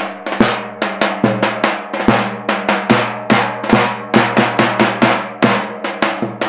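Bulgarian tapan, a large double-headed folk drum, beaten in a fast, uneven rhythm of about five strokes a second that mixes heavy low hits with lighter, sharper strokes.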